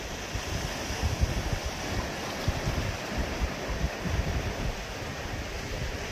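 Sea waves washing onto a rocky shore in a steady hiss, with wind buffeting the microphone in irregular low gusts.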